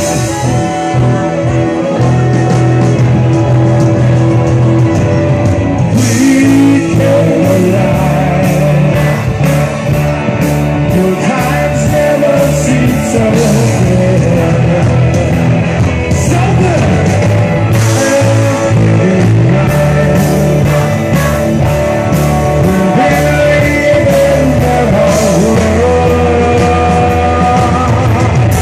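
Loud amplified rock music with singing and guitar; drums come in about six seconds in and keep a steady beat.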